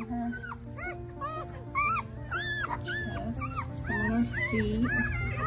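Young bernedoodle puppies whimpering and squealing: a quick run of short whines, each rising and falling in pitch, two or three a second. Background music with held notes plays underneath.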